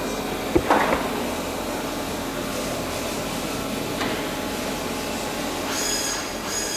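Steady mechanical workshop din in an aircraft restoration hangar, with a few sharp knocks about half a second in. Two steady high-pitched tones come in near the end.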